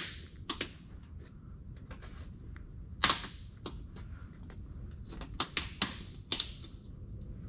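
Sharp metal clinks and taps of a tubular side step's mounting bracket and half-inch bolts being worked into the truck's rocker mounts, a tight fit. Irregular hits, some with a short ring, the loudest right at the start and a cluster about five to six and a half seconds in.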